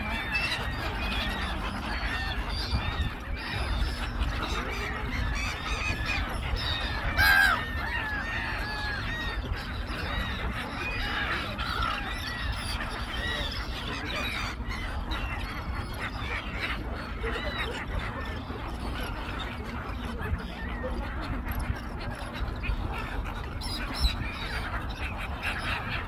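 A large flock of gulls calling constantly, a dense chorus of overlapping short squawks, with one louder call about seven seconds in. A steady low rumble runs underneath.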